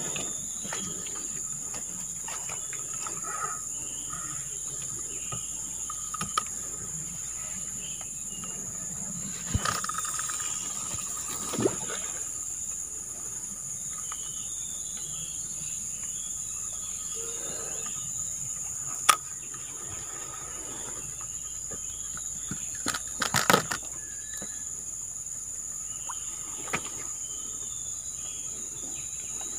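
Steady high-pitched insect drone with scattered short bird calls. A few sharp clicks and knocks break through, the loudest about 19 seconds in and a quick cluster of them around 23 seconds.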